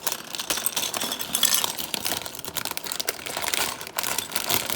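Plastic LEGO parts bags crinkling and handled, with loose LEGO pieces clicking and rattling against each other.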